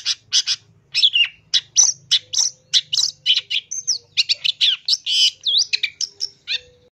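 Long-tailed shrike calling: a fast run of harsh, chattering notes, about two to three a second, that turns into more varied whistled and swept notes. It cuts off suddenly near the end.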